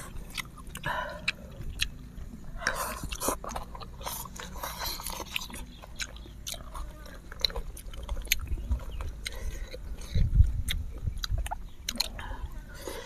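Close-miked eating of spicy instant noodles: chewing and slurping, with many sharp clicks and smacks throughout and a few low thumps about ten seconds in.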